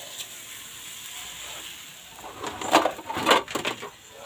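Cookware being handled on a gas stove: a pan and a metal utensil clatter and scrape against the stove grate in a quick cluster of sharp knocks about halfway through, over a faint steady hiss.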